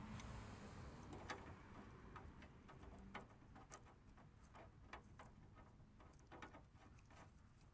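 Faint, scattered clicks and ticks as an oil cooler line's metal fitting nut is handled and threaded by hand onto the oil cooler, over near silence.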